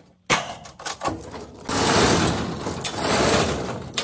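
A sharp knock, then about two seconds of loud, rough scraping noise, and another short knock at the end.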